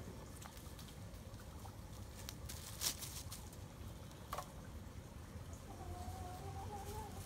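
Chickens foraging in dry leaf litter, with scattered light clicks and rustles and a sharper click about three seconds in. Near the end a hen gives one drawn-out, slightly rising call.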